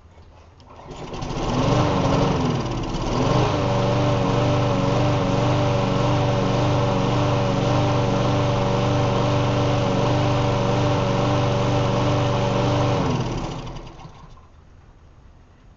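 Bolens self-propelled walk-behind lawn mower engine starting about a second in, faltering briefly, then running steadily before it is shut off and winds down near the end. It runs smoothly, freshly got running again after repair.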